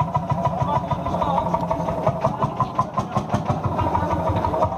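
Old Landini tractor's engine running with an even beat of about five firing pulses a second.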